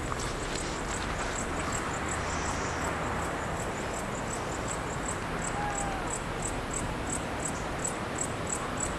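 An insect chirping in a steady high-pitched rhythm, about three chirps a second, over steady background noise.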